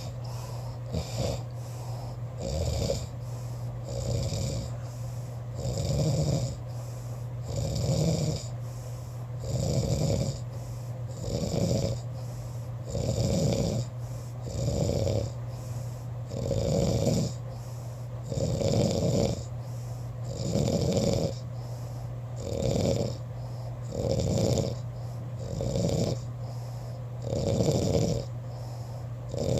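A person snoring in sleep, one even snore about every two seconds, over a steady low hum.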